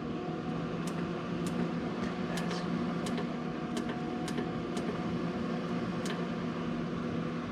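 A steady machine hum with several held tones, with faint scattered ticks over it.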